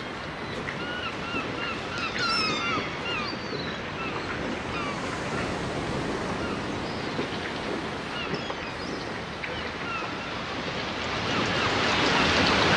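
Surf washing steadily, with short repeated bird calls over it, most of them in the first few seconds; the wash swells louder near the end.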